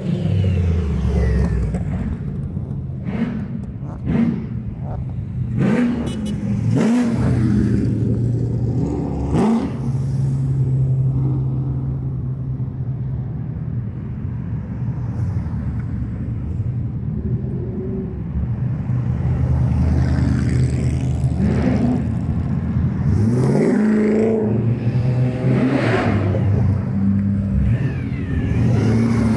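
Modified cars' engines revving as they drive past one after another, the pitch rising and falling with each blip of the throttle. Near the end, a ute with a supercharger through its bonnet comes past.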